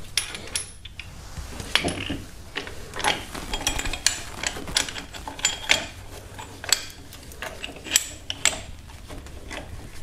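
Steel parts of a screw-type brake caliper piston compressor tool clinking and clicking irregularly as it is fitted against the brake caliper and its adapter and threaded spindle are turned by hand.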